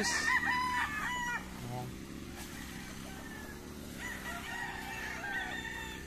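Gamefowl roosters crowing. One crow lasts about a second and a half at the start, and a fainter, longer crow begins about four seconds in.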